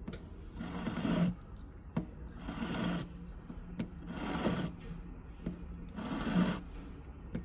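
Hand file rasping on an 18-karat gold ring in four slow, even strokes about a second and a half apart, with a few sharp ticks between strokes.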